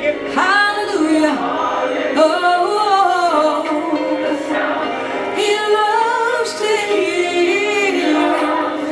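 A group of women and men singing a gospel praise song together, holding long wavering notes.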